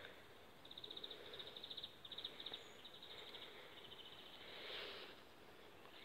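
Faint high chirping in short trilled bursts, about ten quick pulses a second, from a small animal in the garden. A soft swell of rustling noise comes near the end.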